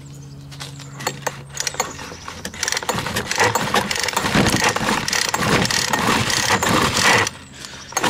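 Poulan Pro handheld leaf blower's two-stroke engine being cranked with repeated pulls of the recoil starter cord. It turns over without firing because there is no spark at the plug. The pulls begin about a second in and stop shortly before the end.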